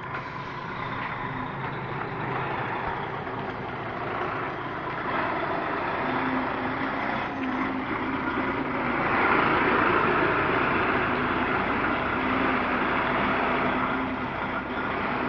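DAF XF 530 truck's straight-six diesel engine running steadily, swelling louder for a couple of seconds past the middle before easing back a little.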